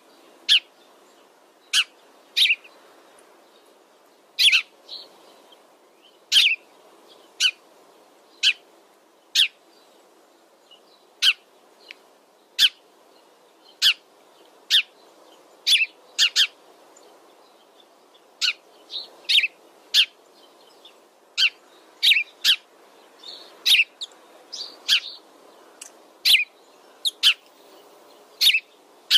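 A flock of Eurasian tree sparrows chirping: sharp single chirps about once a second, some in quick pairs, over a steady low background hiss.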